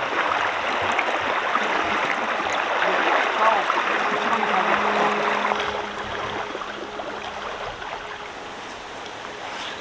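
Shallow stream water rushing and splashing around wading legs, louder for about the first six seconds, then settling to a softer steady flow.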